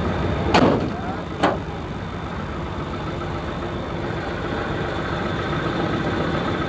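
An engine idling steadily, with two sharp knocks about half a second and a second and a half in.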